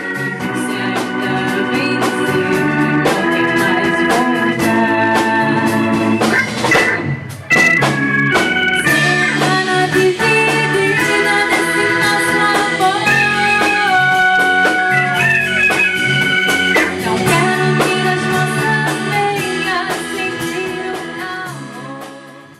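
Forró pé de serra played live by a band: sustained reedy chords over a steady percussion beat, fading out near the end.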